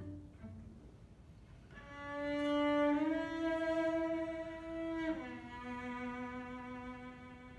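Solo cello: a couple of short plucked notes at the start, then a long bowed note swells in, steps up a little, and about five seconds in steps down to a lower note that is held and slowly fades.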